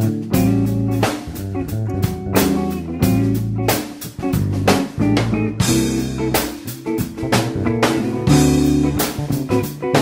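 Instrumental background music with guitar over a steady drum beat.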